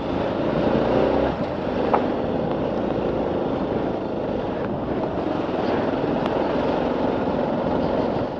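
Hero XPulse 200 4V motorcycle's single-cylinder engine running steadily as the bike is ridden.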